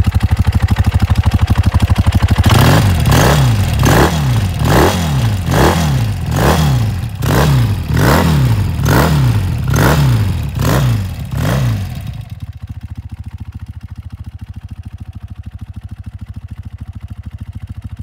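An engine running steadily, then revved up and down about once a second, some ten times over. It then settles back to a quieter steady idle about twelve seconds in.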